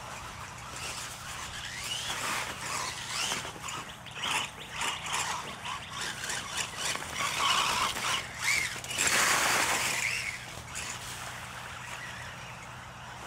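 Radio-controlled monster trucks' electric motors whining, the pitch rising and falling as they speed up and slow down, with a louder rushing burst about nine seconds in.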